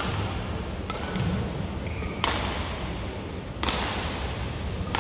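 Badminton rackets striking a shuttlecock in a rally: sharp hits about every second and a half, five in all. There is a short squeak about two seconds in.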